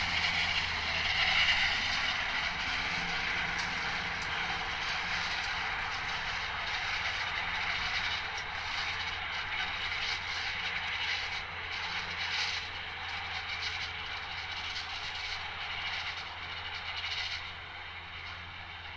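Tractor engine running under load with a Fella front and side disc mower combination cutting grass: a steady low hum under a whirring hiss from the mower. It grows gradually fainter as the tractor moves away.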